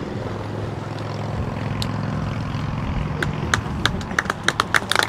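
Scattered sharp hand claps from spectators, starting about three seconds in and coming faster near the end, over a steady low hum.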